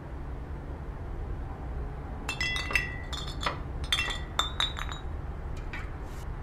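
A run of light glassy clinks, some leaving a brief ringing tone, from about two seconds in to about five, with a few fainter ones near the end. Under them runs a steady low rumble.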